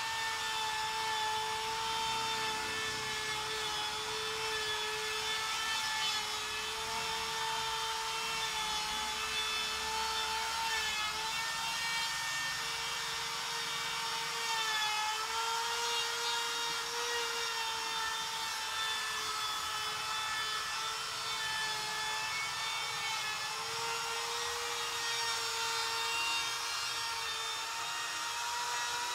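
Electric router running steadily while cutting a V-groove into an aluminium composite panel: a steady high motor whine whose pitch wavers and dips slightly now and then as the bit takes load.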